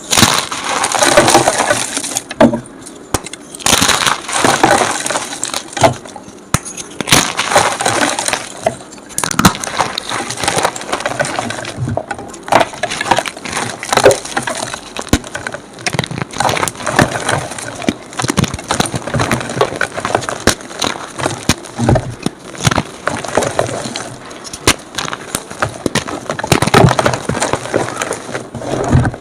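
Blocks of gym chalk crushed and crumbled by hand, giving dense, continuous crunching and crackling with many sharp snaps, coming in waves a few seconds long. The playback is sped up.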